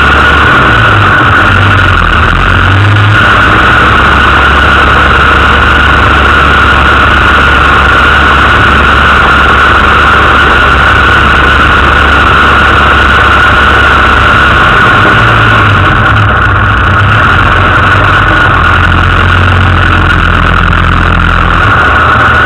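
Land Rover 4x4's engine running at low revs, its low note shifting a little a few seconds in and again near the end, over a steady high whine.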